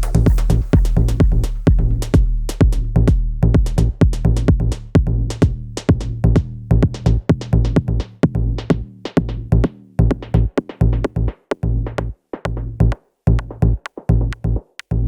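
Electronic background music with a steady drum-machine beat and heavy bass, thinning to scattered hits and stopping near the end.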